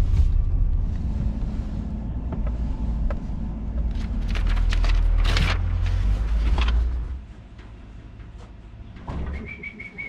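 Pickup truck towing a stock trailer: a steady low engine and road rumble with rattles and knocks, which drops away suddenly about seven seconds in, leaving a quieter background.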